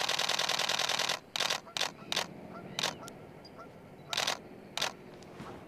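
Canon EOS-1D Mark IV DSLR's mechanical shutter firing a rapid continuous burst, about ten frames a second, that stops about a second in. Then come a few short bursts and single shots at irregular intervals.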